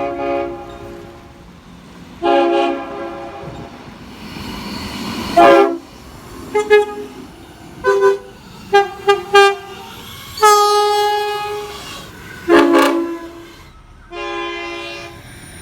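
Train air horns blowing a run of blasts: several held for about a second, a cluster of quick short toots in the middle, and one longer blast about ten seconds in. Each blast sounds as a chord of several notes at once.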